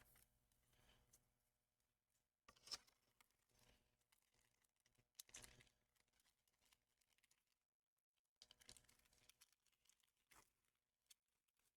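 Faint rustles of Pokémon trading cards being handled and slid through, in a few short bursts several seconds apart over near silence.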